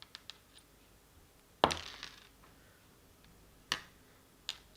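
Small hard parts of an RC car's ball differential clicking against each other and the table as it is taken apart by hand. A few faint ticks come first, then a sharper clack about one and a half seconds in that trails off briefly, and two more clicks near the end.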